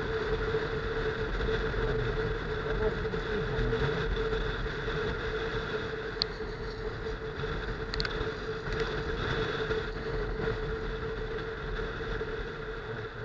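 Benelli TNT 15 motorcycle's small single-cylinder engine running steadily at cruising speed on a wet road, with wind rushing over the microphone. It eases off a little in the second half.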